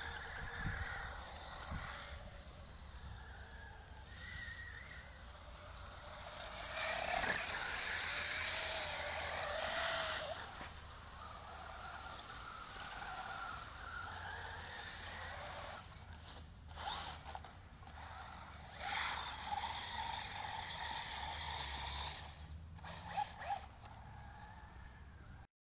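Radio-controlled truck driving on snowy ice, its motor whining up and down in pitch as it speeds up and slows. A louder hiss swells about a third of the way in, with short dips and bursts near the end.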